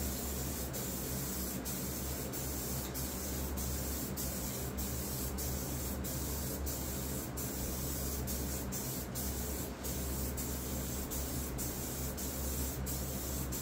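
Aerosol can of clear coat spraying onto a wooden box: a steady hiss, broken by many brief gaps.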